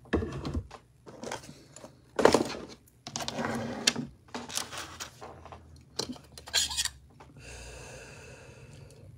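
Metal fork clinking and scraping against a pan in a string of irregular knocks and scrapes.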